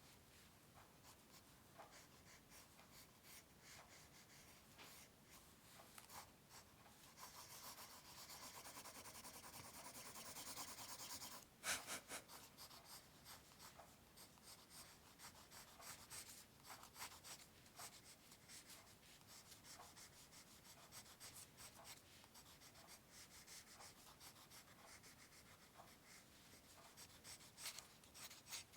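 Faint scratching of pencil strokes on paper, with a stretch of steady back-and-forth shading about seven to eleven seconds in. A single sharp tap comes just before the twelfth second.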